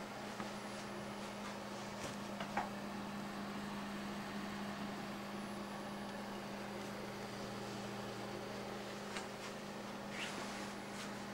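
PC case fans running steadily under an Arduino fan controller: an even whir with a constant low hum, and a few faint clicks.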